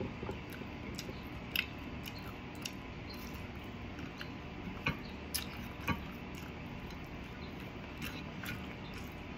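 A person chewing and eating a meal of fried adobo, with a few short, sharp clicks and taps, about one and a half, five and six seconds in.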